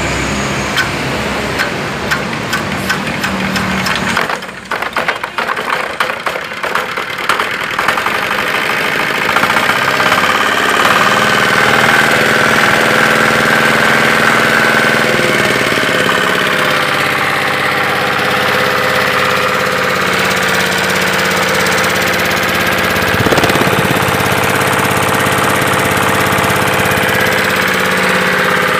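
Small diesel engine running. For a few seconds it gives separate uneven knocks, then about eight seconds in it settles into a steady, even run.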